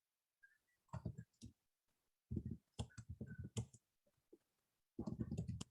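Faint clicking in three short irregular clusters, with silence between them.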